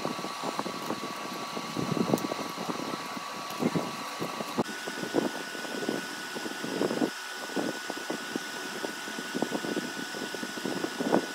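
A steady machine hum, like a running fan, with a thin whine that jumps higher in pitch about halfway through, and irregular soft rustles and bumps of hands handling braided fishing line.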